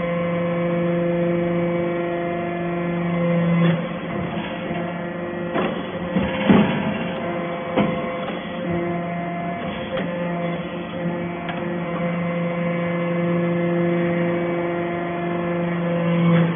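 Hydraulic metal-chip briquetting press running: a steady pitched hum from its hydraulic power unit that drops away about four seconds in, a few sharp knocks and clanks from about six to eight seconds in as the press cycles and a briquette is pushed out, then the steady hum again.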